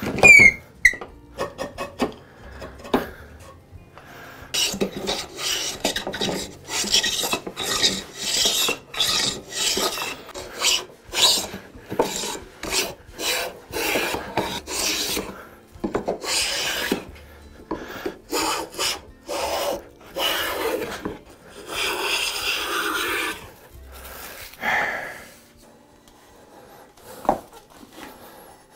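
Metal hand plane taking repeated passes over a glued-up red oak board, each stroke cutting a shaving, roughly one a second with short gaps between. Near the start, a brief squeak and a few knocks as the wooden handscrew clamps are taken off.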